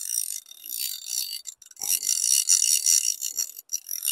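A fly reel's click-and-pawl ratchet rattling as the spool turns while line is wound on or off, in several short spurts with brief pauses. The reel is a bit noisy.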